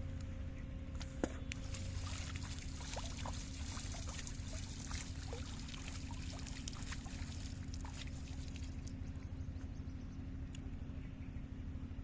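Water trickling and splashing in many small irregular drips for several seconds, over a steady low drone, with one sharp click about a second in.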